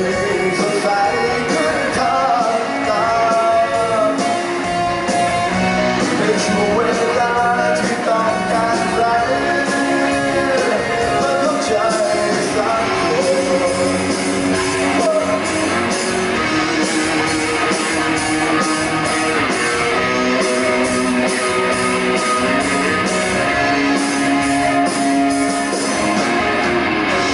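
Live rock band playing loudly: amplified electric guitar over an electric bass line, with sustained melodic lead lines.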